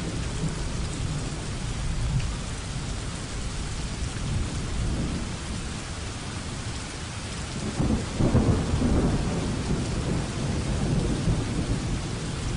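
Thunderstorm: steady rain with low rumbling thunder that swells loudest about eight seconds in.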